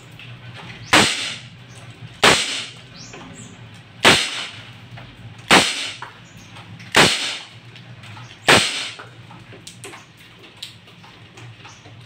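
Six shots from an ASG Dan Wesson 715 airsoft revolver, a CO2-powered gun firing 6 mm BBs, each a sharp pop with a brief ring, about one every one and a half seconds until the cylinder is empty.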